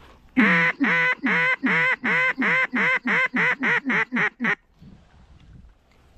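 A mallard duck call blown in a hail call: about thirteen loud, close hen-mallard quacks, each shorter and quicker than the last, stopping about four and a half seconds in.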